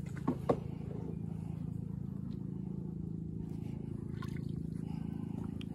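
Small boat engine humming steadily at low revs, with two sharp knocks about half a second in.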